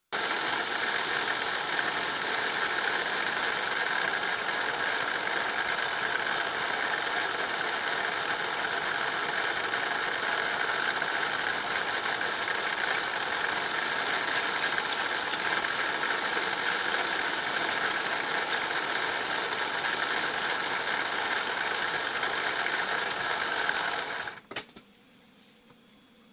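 Metal lathe running steadily while machining a shaft, a constant motor-and-cutting sound that stops abruptly near the end.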